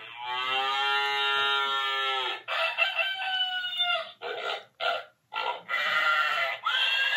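A children's farm-animal sound book plays recorded animal calls through its small speaker, one after another, a rooster crowing among them. A long call of about two and a half seconds comes first, then another call, a few short bursts, and a last call near the end.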